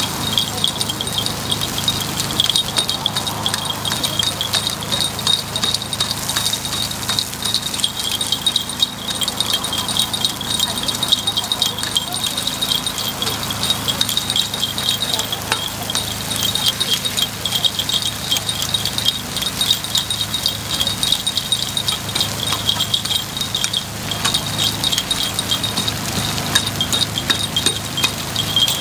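Metal takoyaki picks clicking and scraping against the iron wells of a takoyaki griddle as the balls are turned: a rapid, continuous clinking with a high ringing edge, over a steady low hum.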